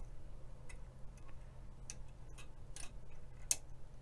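Irregular sharp clicks from the control knobs of a Trio CS-1566A analog oscilloscope being turned, a few clicks over the seconds, over a low steady hum.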